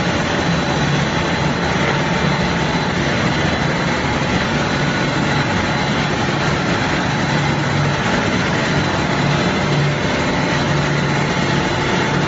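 CPP cast film production line running: a steady, even machine noise with a low hum and a few faint steady tones over it.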